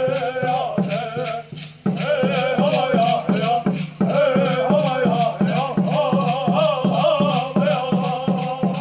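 Zuni ceremonial dance song: singers chanting over an even beat of shaken rattles, about four strokes a second, with a brief break in the song about two seconds in.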